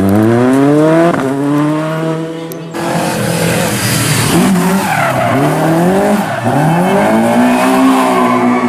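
Rally car engine revving hard, its pitch climbing and dropping again and again as the driver works the throttle, with tyre squeal from the car sliding. The sound changes abruptly about three seconds in.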